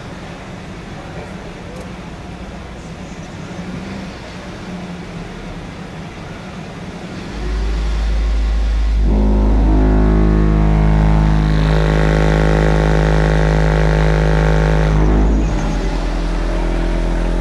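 Car-audio subwoofers playing a steady, very deep bass tone at competition volume, starting about seven seconds in, with a stack of steadier higher tones joining about two seconds later. This is an SPL metering run, with the meter reading above 160 dB.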